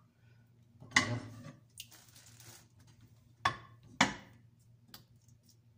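Kitchen dishes being handled: a plate and utensils knocked against each other and against the sink area. There are three sharp clinks, one about a second in and two close together around three and a half and four seconds in.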